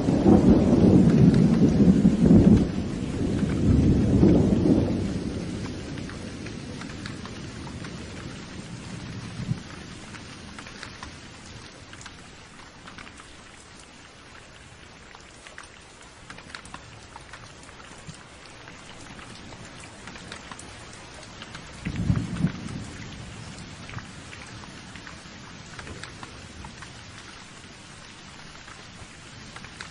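Thunderstorm: steady heavy rain with a loud rumble of thunder in the first few seconds that dies away, and a second, shorter peal of thunder about twenty-two seconds in.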